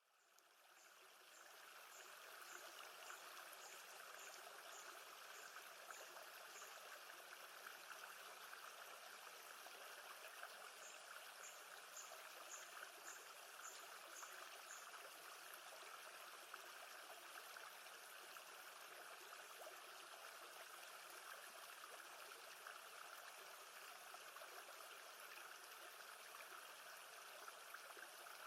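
Faint, steady sound of gently moving lake water, fading in at the start. Two runs of short, high notes, about two a second, sound over it near the beginning and around the middle.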